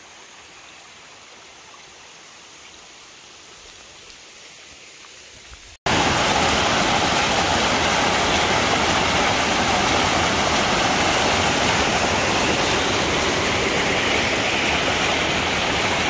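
A faint steady rushing noise, then, about six seconds in, a sudden switch to the loud, steady rush of a mountain stream cascading over boulders.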